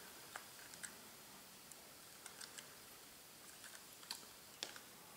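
A handful of faint, sharp plastic clicks and taps at irregular intervals, over a near-silent background. They come from the clipped-together plastic casing of a Honeywell HR92 thermostatic radiator valve controller being handled and prised apart by hand.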